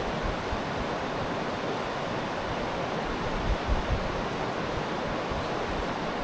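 Steady rush of a river running over stones, with a few brief wind buffets on the microphone a little after the middle.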